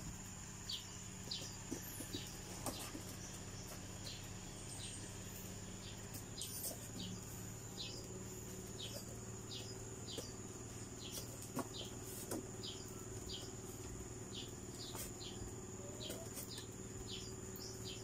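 A small bird chirping over and over, short falling chirps coming more than once a second, over a steady high-pitched whine and a low hum.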